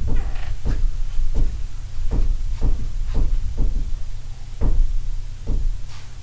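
A series of irregular dull thumps and knocks, about ten in six seconds, over a steady low hum.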